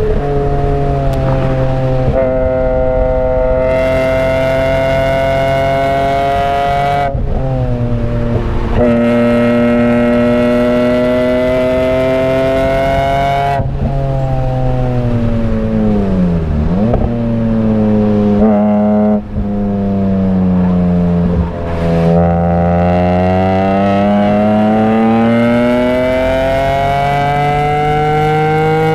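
BMW E46 M3's S54 straight-six, heard from inside the cabin, running hard at high revs on track. Its pitch holds high with short breaks when the throttle lifts, drops sharply and comes back up with a few brief dips midway as the car brakes and shifts down from third to second, then climbs steadily under acceleration for the last several seconds.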